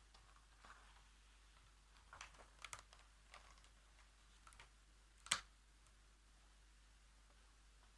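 Faint, scattered light clicks and taps from handling a pen and the paper pages of a colouring book, a few close together around two to three seconds in and one sharper click a little past five seconds.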